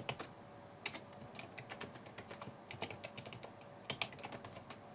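Typing on a computer keyboard: irregular key clicks, a few at a time, as a password is typed back in.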